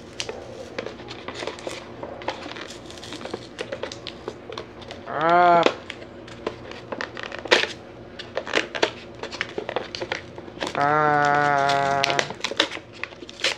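Plastic wrapper of a Maruchan instant soup being crinkled and torn open, a steady run of small crackles and clicks. A person's voice breaks in with a brief sound about five seconds in and a longer drawn-out sound near the end, the loudest things heard.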